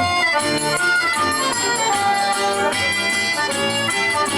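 Forró music led by an accordion playing a melody of held notes, with no singing.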